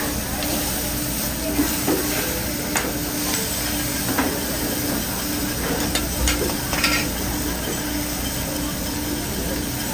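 Chicken, steak and vegetables sizzling on a hot flat-top steel griddle, with a metal spatula and fork clicking and scraping against the steel a few times.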